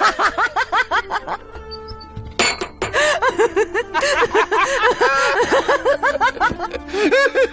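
A woman laughing hard in quick bursts, breaking off briefly about two seconds in and then laughing again, over soft background music.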